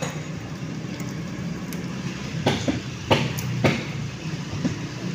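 Sharp metal clicks from steel pry-bars levering down the valve springs on a Fuso 6D16 cylinder head while the valve keepers are seated. There are a few faint clicks, then three louder ones in quick succession past the middle, over a steady low mechanical hum.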